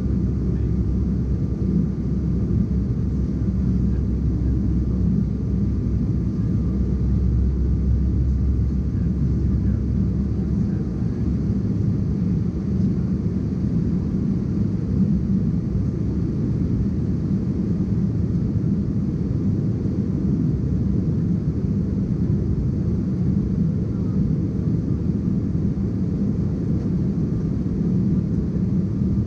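Steady low roar inside the cabin of an Embraer ERJ-190 airliner in flight: the noise of its GE CF34 turbofan engines and the airflow, with a faint steady high whine. The deepest part of the rumble eases slightly about ten seconds in.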